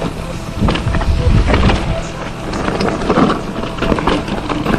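Focus Jam mountain bike riding down a rough off-road trail: tyres crunching over dirt and rocks, with rapid, irregular rattles and knocks from the bike.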